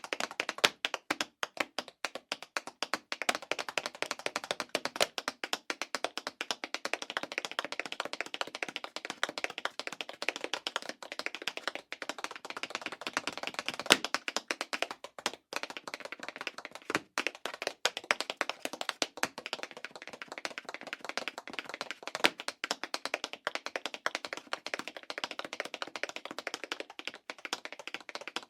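Tap shoes striking a hard floor in fast, dense rhythmic patterns of metal-tipped clicks, with a few brief pauses and occasional louder accented taps.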